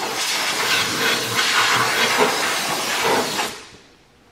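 Compressed-air blow gun hissing as it blows grit off a newly installed cylinder sleeve and the engine block top; the air cuts off about three and a half seconds in.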